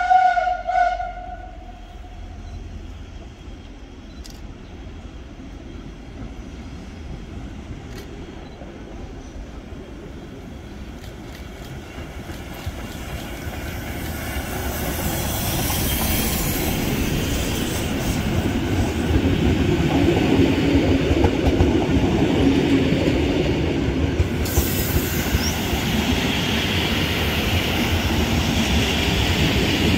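Steam whistle of the Eb 3/5 tank steam locomotive, one steady tone that cuts off about a second in. Then the train approaches, growing louder from about twelve seconds in. The locomotive and its coaches roll past with wheels clattering over the rail joints and some squealing.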